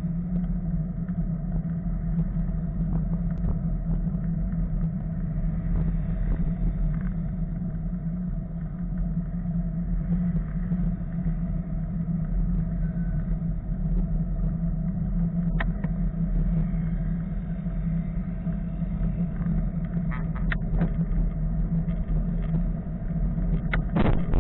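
Steady road traffic noise as cars pass close by on a busy road, heard from a moving bicycle, with a constant low hum and a couple of sharp clicks in the second half.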